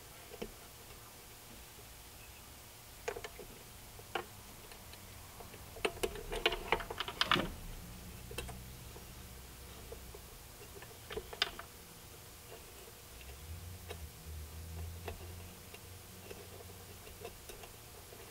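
Scattered small clicks and taps of hands fitting an H1 HID bulb and its wiring into the back of a headlight housing, with a quick run of clicks about six to seven seconds in.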